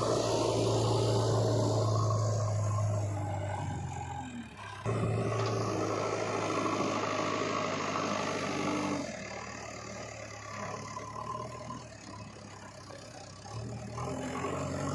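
Diesel engines of a backhoe loader and farm tractors running steadily. The sound changes abruptly about five, nine and fourteen seconds in, dropping quieter between nine and fourteen seconds.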